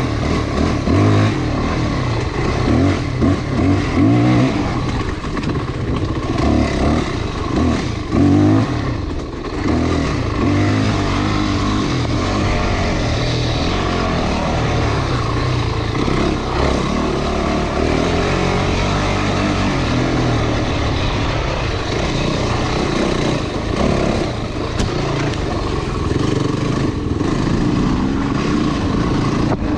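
Off-road motorcycle engine running under way, its pitch rising and falling again and again as the throttle is worked, steadier after about ten seconds.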